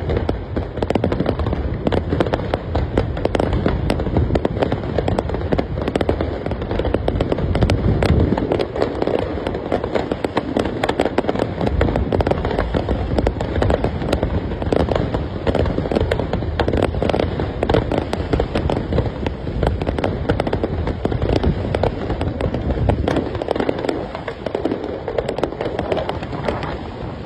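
Fireworks display firing a dense, continuous barrage of bangs and crackles over a deep rumble.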